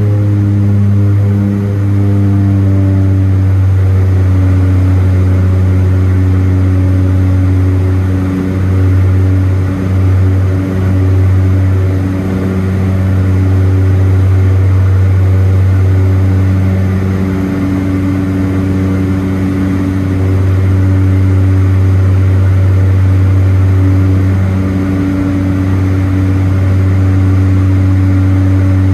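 Steady cabin drone of a de Havilland Canada DHC-6 Twin Otter's two turboprop engines and propellers: a loud low hum with a few overtones above it, wavering and dipping briefly about eight to eleven seconds in.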